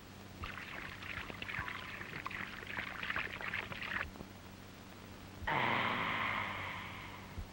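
Cartoon water effect of a can scooping and sloshing in a wooden tub: a rough splashing for about three and a half seconds, then, after a short pause, a louder rush of water that fades away.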